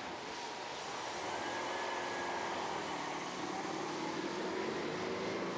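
A vehicle engine running, its pitch drifting slowly up and down, over a steady rushing noise.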